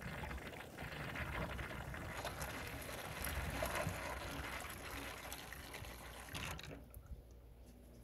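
Miele dishwasher gurgling as water runs in through its inlet while it tries to fill. It fades away about two-thirds of the way through. The machine is throwing F12/F13 water-inlet errors, which the owner traces to a failed reed contact on the flow meter.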